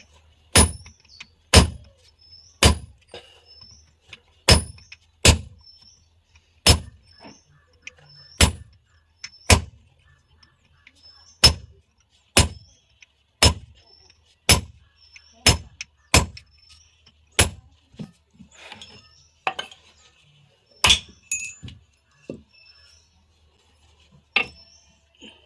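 A blacksmith's hammer striking metal on an anvil, single sharp ringing blows about a second apart, with short pauses between runs of strikes.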